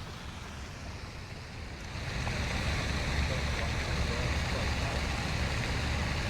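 Wind buffeting the microphone outdoors, a steady low rumbling rush that grows louder about two seconds in.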